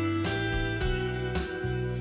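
Background instrumental music led by plucked guitar, over a sustained bass line and regular percussion hits.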